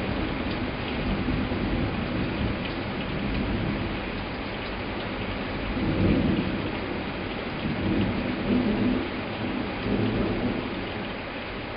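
Heavy cloudburst rain hissing steadily, with thunder rumbling in slow swells over it; the strongest roll comes about halfway through, followed by two more near the end.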